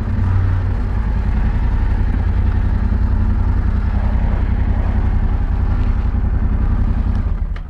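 Yamaha Ténéré 700's 689 cc parallel-twin engine running at low revs as the motorcycle rolls slowly at walking pace, a steady low burble that drops away near the end.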